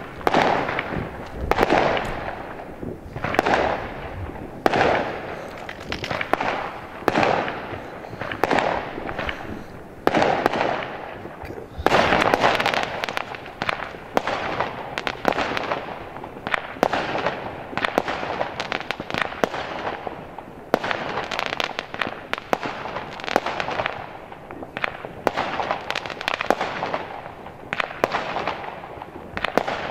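Aerial fireworks bursting one after another, each bang trailing off in a long echo, about one every second and a half. From about twelve seconds in the bursts come thick and fast, with many sharp cracks over them.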